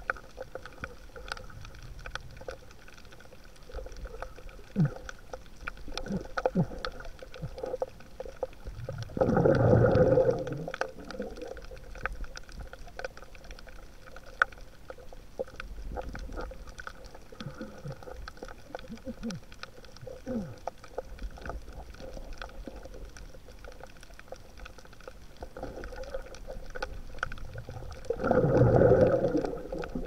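Underwater ambience picked up by a camera moving over a reef: a steady low wash with scattered clicks and crackles. Two louder rushes of about a second and a half stand out, about nine seconds in and near the end.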